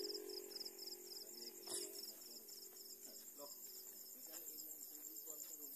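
Night insects, crickets, chirping: a high pulsing chirp about four times a second over a steady, higher trill.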